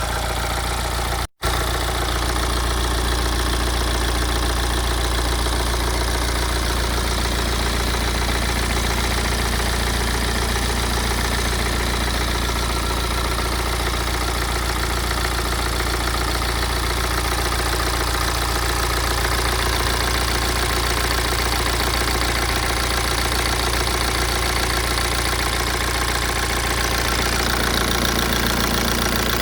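BMW 116d's N47 2.0-litre four-cylinder diesel engine idling steadily with a rattle, which the owner suspects comes from a worn dual-mass flywheel. The sound drops out for an instant about a second in.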